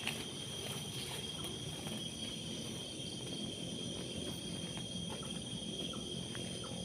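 Night insects chirring in a steady chorus: several high, unbroken tones held without a break, over a faint low rumble.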